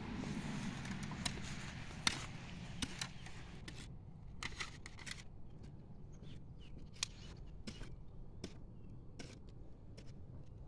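Hoe blade scraping and chopping into dry, stony garden soil as dirt is pulled around newly set transplants: irregular scrapes and sharp clicks, many of them, over a low steady rumble.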